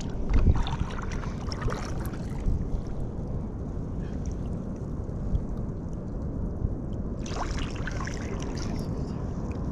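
Water lapping against a fishing kayak's hull, with a steady low wind rumble on the microphone. A few knocks come in the first second, and a hissing rush starts about seven seconds in.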